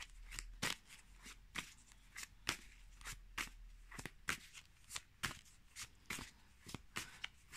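A tarot deck being shuffled by hand: faint, even card flicks about three times a second.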